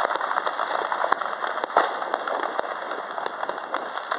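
Distant fireworks and firecrackers going off all around: many irregular, sharp pops and bangs over a steady crackling haze.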